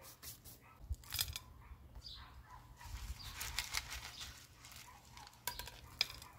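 Repotting handling noises: a few sharp clicks and knocks about a second in and again near the end, with a rustling scrape in the middle, as a small hand trowel and a plastic pot of white decorative pebbles are handled on a hard tabletop.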